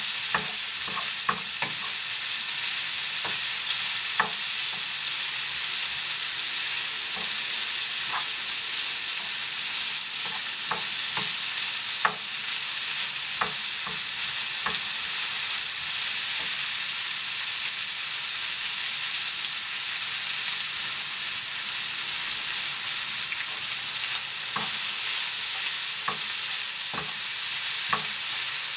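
Sliced onion and bacon bits sizzling steadily in a frying pan, stirred with a wooden spoon that scrapes and knocks against the pan now and then.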